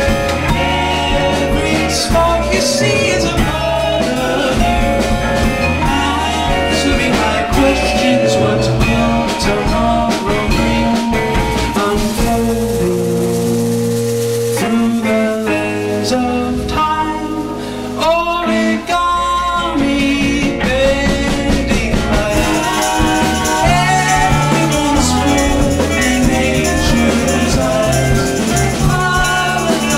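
Live band playing a song with guitar, bass and drum kit. The low end drops away for several seconds about halfway through, then the full band comes back in.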